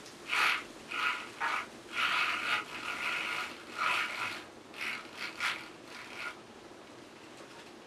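Roller blind being pulled down over a window, its roller mechanism sounding in about ten short bursts over some six seconds, then stopping.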